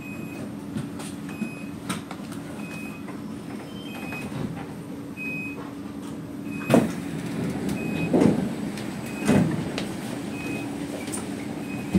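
Inside a C751B MRT train car: a steady low hum with a faint high beep repeating about every 0.7 seconds. Three loud knocks or thumps come around the middle, about a second apart.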